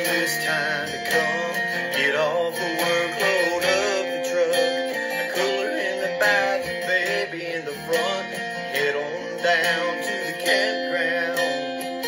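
Background music: a song led by strummed acoustic guitar, with a wavering melody line over it.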